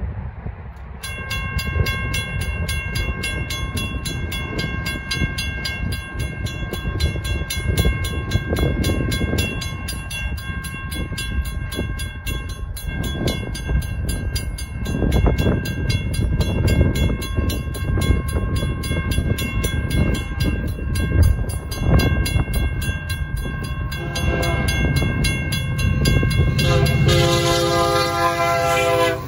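Railroad crossing bells start ringing about a second in, a fast, steady dinging that carries on as the gates lower. From about 24 seconds the approaching freight's lead locomotive, a Union Pacific EMD SD70M, sounds its multi-note horn, louder toward the end as it reaches the crossing.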